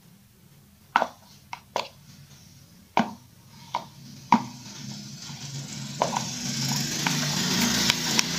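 A mixing stick tapping and scraping against a thin plastic cup while scraping thick epoxy resin out of it into another cup: several sharp taps from about a second in, then a steadier scraping and rustling from about five seconds in.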